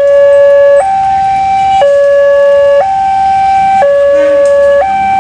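A loud two-tone horn or siren alternating steadily between a lower and a higher note, each held for about a second, in a hi-lo pattern.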